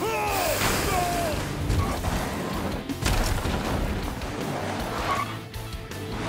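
Cartoon soundtrack of background music mixed with crash and impact sound effects from a monster truck clash, several sharp hits in the first three seconds. Short voiced cries come at the start and about a second in.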